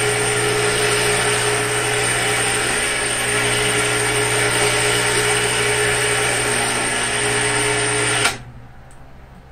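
Electric chain hoist motor running under load, lifting a strapped battery pack, with a steady hum; it cuts off suddenly about eight seconds in.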